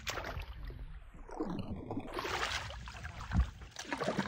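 Shallow water splashing and sloshing as a hand sweeps through it, with a single dull thump about three and a half seconds in.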